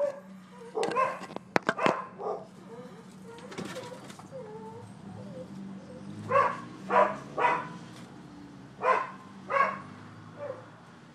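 Dogs barking in short, separate barks: a cluster in the first two seconds, three barks about six to seven and a half seconds in, two more around nine seconds and a last small one near the end, over a faint steady hum.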